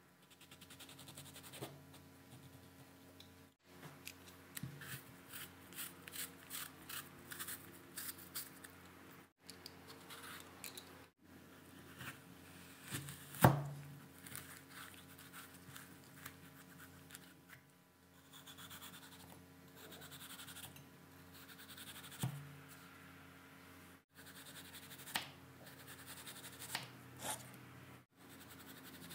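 Kitchen knives and an apple corer working a tomato and an apple on a wooden cutting board: runs of quick, crisp strokes of the blade through the flesh with light taps on the board, broken by a few short silent gaps. One sharp knock stands out about halfway through.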